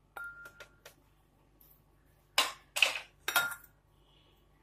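Cookware clinking as curry is served from a pan into a serving bowl: a few light taps, then three louder ringing clinks about half a second apart.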